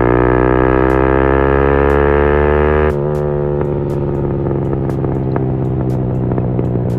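Motorcycle engine pulling in gear with its pitch slowly rising, then the throttle shut about three seconds in, after which the exhaust crackles with a run of sharp pops on the overrun.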